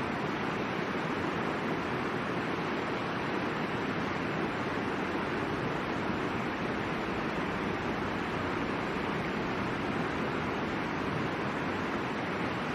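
River water rushing over rocks in a steady, unbroken roar of white water.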